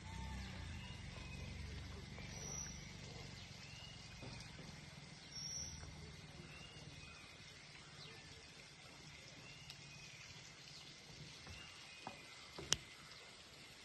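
Birds calling outdoors: a short arching note repeated about every two seconds, with a couple of brief higher-pitched notes, over a low rumble. A single sharp click near the end is the loudest sound.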